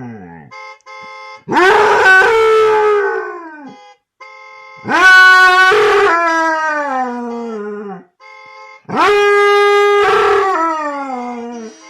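A dog howls three times in answer to car horns. Each long howl slides down in pitch. Before each howl comes a short, quieter, steady car-horn blast.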